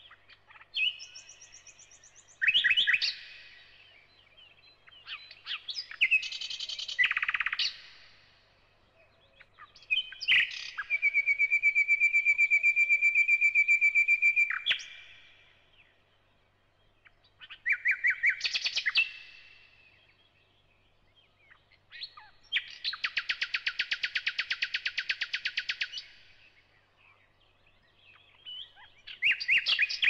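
Thrush nightingale singing: six loud phrases separated by short pauses, mixing whistles, sharp clicks and fast dry rattles. The longest, near the middle, is a rapid even trill held for about four seconds.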